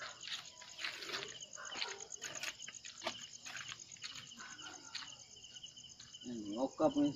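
Night insects, crickets, trilling steadily, with irregular short scuffing noises throughout. A person's voice begins near the end.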